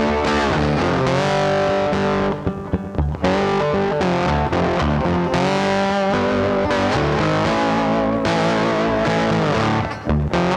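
Background rock music with distorted electric guitar, loud throughout, with brief breaks about two and a half seconds in and near the end.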